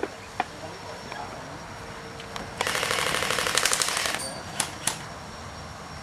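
Airsoft gun firing a rapid full-auto burst of about a second and a half, starting about two and a half seconds in, with a few single shots before and after it.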